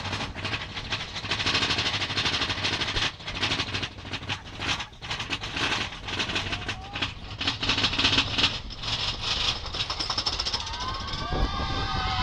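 Mine train running on its rails, with a loud, steady clatter of wheels and wagons full of rapid knocks and rattles.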